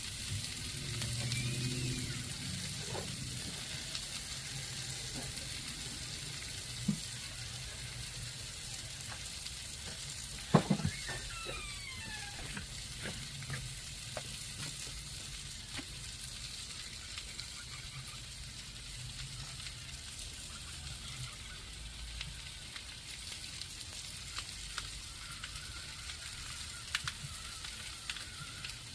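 Sliced potatoes and onions frying in olive oil and butter on a grill, with a steady sizzling hiss. A few sharp clicks, and a brief clatter about ten seconds in, stand out above it.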